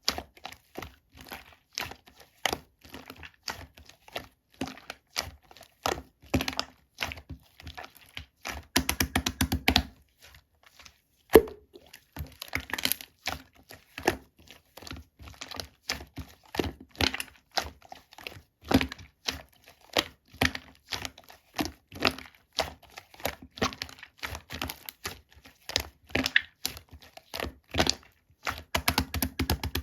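Slime being squeezed and stretched by hand, giving an irregular stream of sticky clicks and pops. There are fast rattling runs of clicks about nine seconds in and near the end, and a short pause followed by a single sharp pop.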